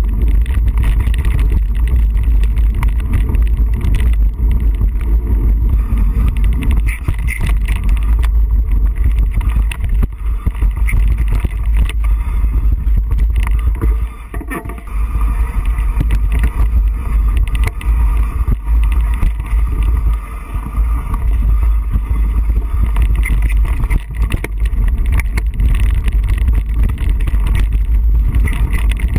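Wind buffeting the microphone of a camera carried on a mountain bike riding a rough dirt trail, a heavy low rumble with rattling and knocks from the bumpy ground.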